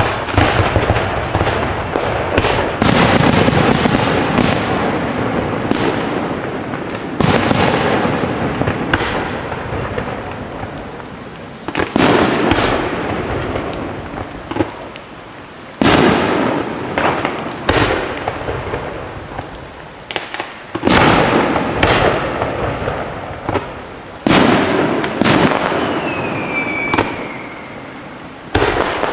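Aerial fireworks bursting one after another, a loud boom every three to five seconds, each followed by a dense spatter of small pops that fades over a few seconds. A short falling whistle comes near the end.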